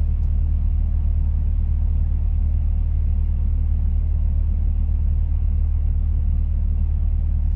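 Steady low rumble of an idling semi-truck diesel engine, heard from inside the cab.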